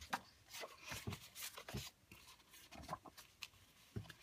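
Thick paper journaling cards being leafed through by hand: a run of faint, irregular rustles, slides and taps of card against card.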